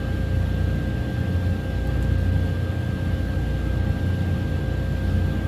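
2014 Chevrolet Silverado's 4.3 V6 engine idling steadily, running again on freshly added fuel, with a thin steady high tone over the low engine sound.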